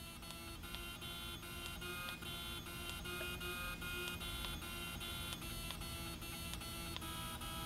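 Electric whine of the CRC-Evans M-300C welding bug's torch oscillation drive: several steady high tones over a low hum that cut in and out and shift every fraction of a second as the torch swings side to side.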